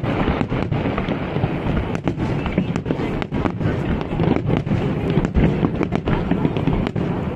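Aerial fireworks shells bursting in a dense, continuous barrage: many irregular sharp bangs over a steady crackle.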